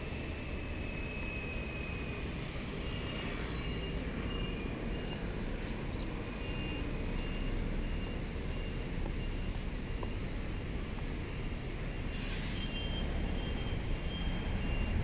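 Steady low rumble of distant road traffic, with faint short high tones in a broken line and a brief hiss about twelve seconds in.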